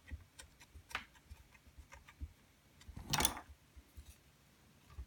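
Faint, irregular clicks and ticks of a camera mount being screwed down and tightened on a mini tripod's quarter-20 mount, with one louder scrape about three seconds in.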